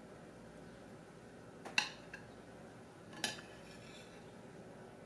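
A metal spoon clinking against a plate a few times as it cuts through a poached egg, the two loudest clinks about a second and a half apart.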